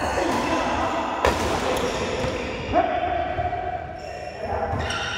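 Badminton rally: two sharp racket hits on the shuttlecock about a second and a half apart, with voices in the background.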